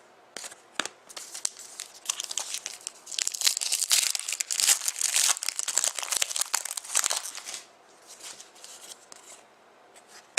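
Foil wrapper of a trading card pack being torn open and crinkled for several seconds, then a few faint ticks of cards being handled near the end.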